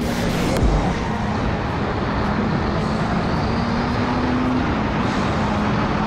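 Motorcycle engine running steadily at speed, heard from an onboard camera under heavy wind noise. The engine note climbs slowly, dips slightly about four and a half seconds in, then holds; there is one thump near the start.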